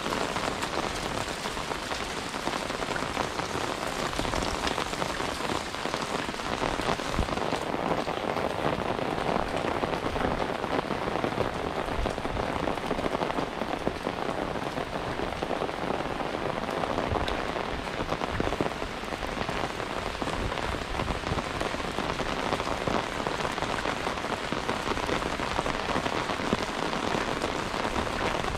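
Steady rain falling on surfaces, an even, dense patter of drops.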